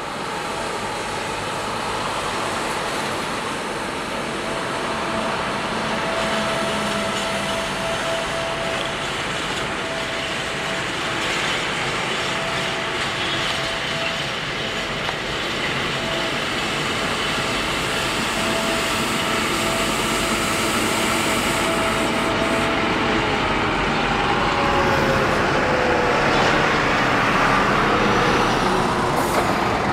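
Long freight train of cement silo wagons, hauled by a diesel locomotive, rolling past as it starts away, slowly getting louder. A thin steady whine runs through it and slides downward in pitch near the end.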